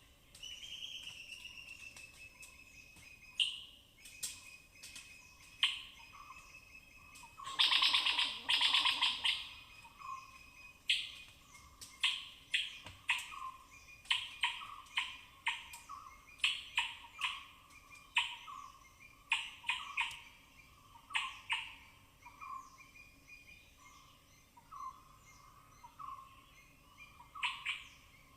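Forest squirrel calling: a thin held whistle at first, then a loud rapid chatter lasting about two seconds, then a long run of sharp high-pitched chirps, one or two a second.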